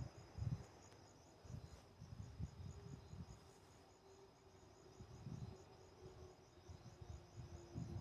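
Cricket chirping in an even, rapid pulse, about four to five chirps a second, with low gusts of wind rumbling on the microphone.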